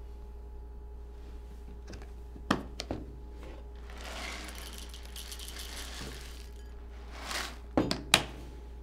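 Plastic cereal dispenser's flip lid clicking open, then dry cereal poured from it into a bowl for about two seconds. Near the end the lid is snapped shut with two sharp clicks, the loudest sounds here.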